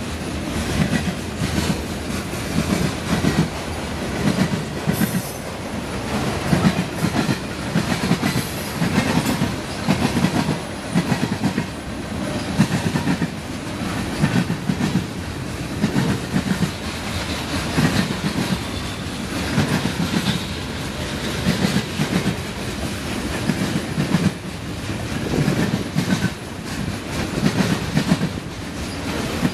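Freight train cars (autoracks and container cars) rolling past, their steel wheels clacking over rail joints in a repeating rhythm of clusters of clacks.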